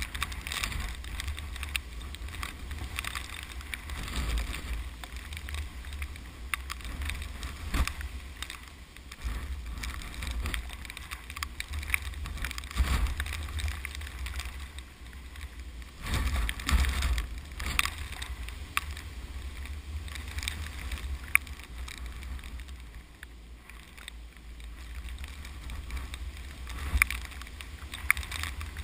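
Strong typhoon wind blowing in gusts, buffeting the microphone with a low rumble that swells and eases, over a steady rustling hiss with scattered small ticks.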